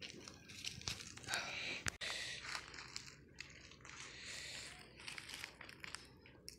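Dry leaves crackling and rustling underfoot, in irregular short crunches with a few sharp clicks.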